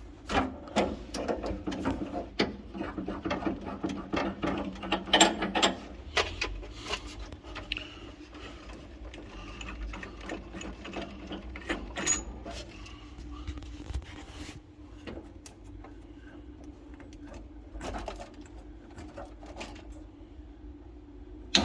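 Hand tools clicking, tapping and rattling on the metal parts of a Biasi gas boiler while its gas valve is taken out. The clicks are dense for the first six seconds and sparser after, over a steady low hum.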